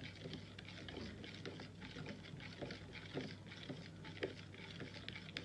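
A spoon stirring a thick oil-and-herb-powder mixture in a plastic measuring cup, making light irregular clicks and scrapes several times a second as it knocks against the cup.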